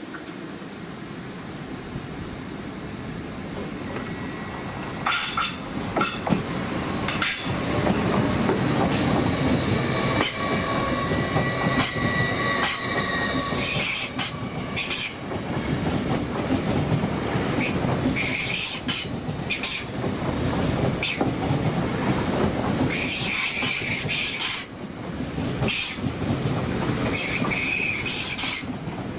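LNER Azuma electric multiple-unit train approaching round a curve and running past close by. The rumble grows louder over the first eight seconds, then holds, with the wheels squealing again and again and some clatter over the rail joints and points.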